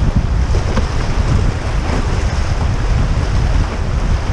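Fast river current rushing over riffles around a canoe, with heavy wind buffeting the camera microphone.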